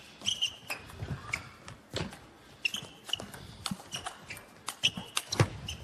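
Table tennis rally: the ball clicks off the rackets and table in quick, irregular succession, with short high squeaks of shoes on the court floor between strokes.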